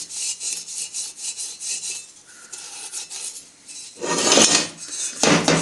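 A Scotch-Brite abrasive pad wet with isopropanol scrubbing a cast aluminium clutch release bearing guide spigot by hand, in quick back-and-forth strokes at about four a second. The rubbing eases off and quietens in the middle, then comes two louder strokes near the end.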